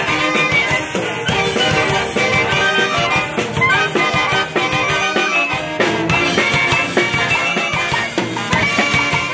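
A live brass band playing: saxophones, clarinets, trumpets and sousaphones together, with cymbals and drums keeping the beat.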